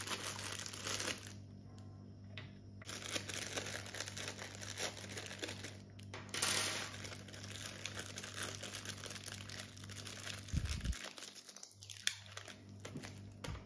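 Thin plastic zip-lock bags crinkling and rustling in irregular bursts as they are opened and handled, over a faint steady hum.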